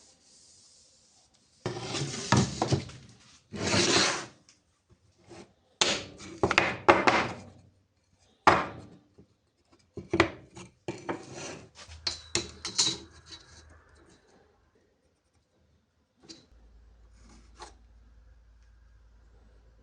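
Wood being worked by hand: a series of short rubbing or scraping strokes with a few knocks, stopping after about fourteen seconds, then a faint low hum.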